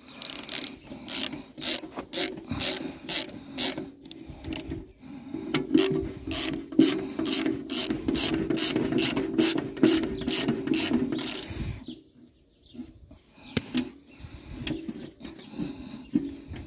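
Ratchet wrench being worked in quick back-and-forth strokes, about two clicking bursts a second, with a short break, then stopping about twelve seconds in. A few fainter clicks follow near the end.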